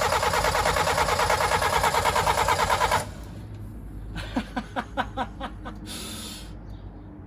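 Toyota 4E-FTE turbo four-cylinder being cranked on the starter, a fast even churning that cuts off suddenly about three seconds in without the engine catching. A short run of quick knocks follows, then a brief hiss.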